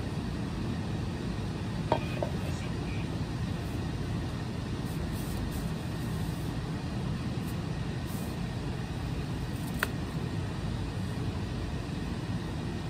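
Steady low background rumble outdoors, with a couple of brief clicks about two seconds in and a sharper click near ten seconds.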